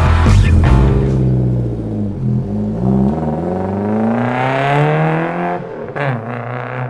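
A car engine revving: its pitch drops about two seconds in, then climbs steadily for a few seconds before breaking off near the end.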